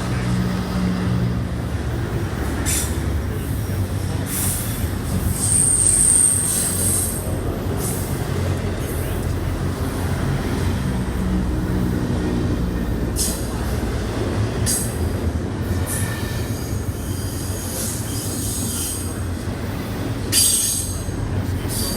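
A train rolling past with a steady rumble of wheels on rail. Brief high-pitched wheel squeals come through several times, and the loudest is a long squeal about six seconds in.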